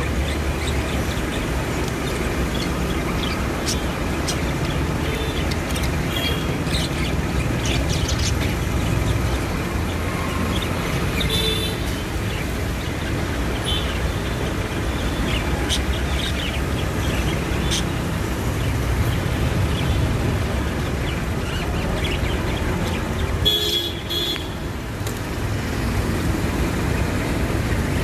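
Steady street traffic rumble from passing vehicles, with short horn toots about halfway through and again near the end.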